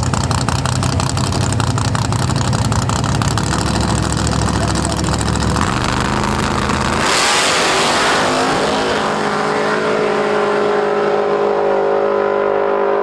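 Drag racing cars rumbling at the start line, then launching at full throttle at about seven seconds in and pulling away down the track, their engine note rising through the run as it draws off.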